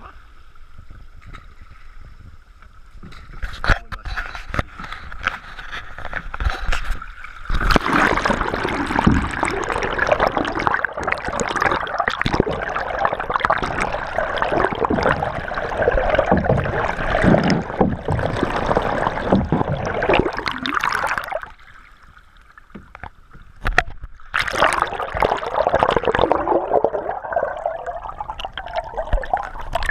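Canoe paddles splashing and water gurgling against the canoe as it moves at speed. The splashing is loud from about seven seconds in, drops away briefly after about twenty-one seconds, and comes back a few seconds later.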